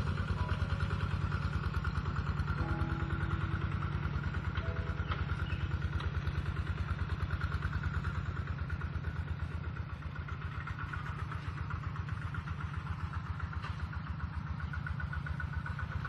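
Kubota RT-120 Plus walk-behind two-wheel tractor's single-cylinder diesel engine running steadily under ploughing load, a rapid even chug of firing strokes. It grows a little fainter about ten seconds in.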